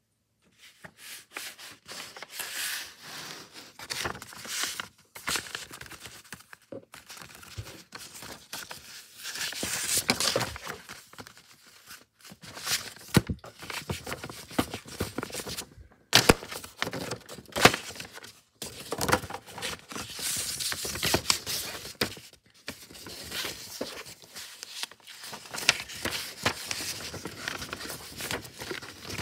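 Sheets of paper being handled, slid and folded on a table: irregular rustling and crinkling in bursts, with a few sharp clicks about halfway through.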